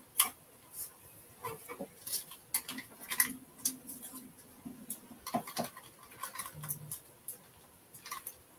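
Plastic burnishing stick rubbing a rub-on decor transfer onto a handsaw's steel blade: irregular light scratchy scrapes and small clicks.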